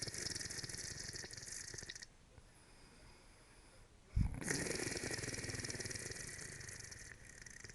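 Slow, rhythmic snoring of someone sound asleep: one raspy snore trails off about two seconds in, and after a quiet pause another starts abruptly at about four seconds and fades out near the end.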